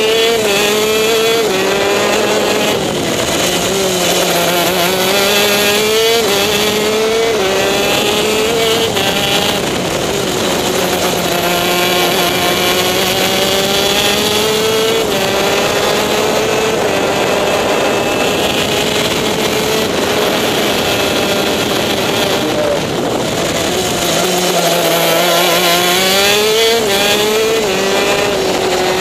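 TM K9C 125cc two-stroke shifter kart engine at racing speed, heard from on board. It revs up through its six-speed gearbox with a quick drop in pitch at each upshift, climbs steadily through one long stretch, and falls away when the throttle eases for corners.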